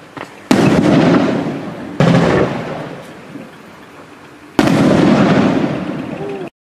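Three-inch aerial firework shells from a finale rack going off: three loud booms, each fading away over a second or more, after a small pop at the start. The sound cuts off suddenly near the end.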